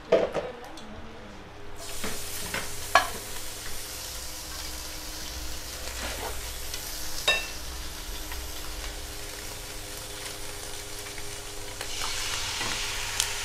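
Hot oil sizzling in a wok, the sizzle starting about two seconds in as the bánh xèo filling goes in, with a few sharp clinks of a utensil against the pan. Near the end the sizzle grows louder as the batter is poured into the hot wok.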